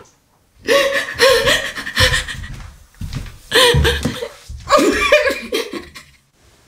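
A woman sobbing, in three long bouts of crying voice with short breaks between.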